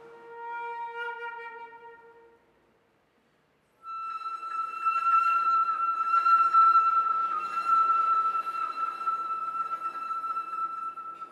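Flute music: a lower held note fades away, a brief silence follows, then about four seconds in a long, steady high flute note is held and cut off sharply near the end.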